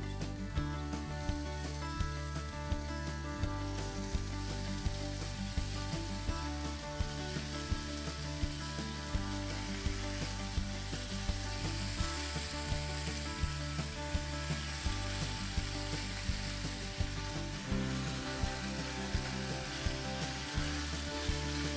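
Bacon sizzling and frying as strips are laid one after another into a hot Dutch oven heated by charcoal briquettes. The sizzle grows louder after the first few seconds.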